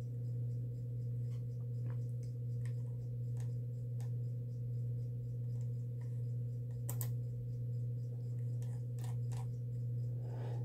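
Steady low hum with scattered, irregular clicks of typing on a computer keyboard.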